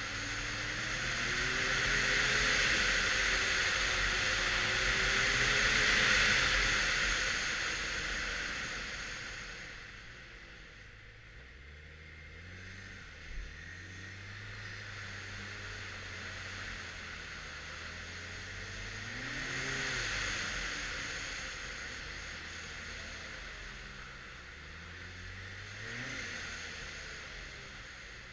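2013 Arctic Cat XF 1100 Turbo snowmobile on the move, its stock three-cylinder turbocharged four-stroke engine rising and falling in pitch with the throttle. It is loudest through the first several seconds and again about twenty seconds in, with a rushing noise over the engine at those times and a single sharp knock about thirteen seconds in.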